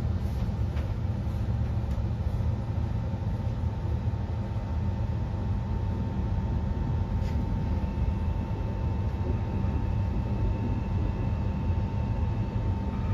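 Cabin sound of a Queensland Rail NGR 700 Series electric multiple unit under way: a steady low rumble of the wheels and running gear, with a steady whine throughout and a fainter, higher whine joining about eight seconds in.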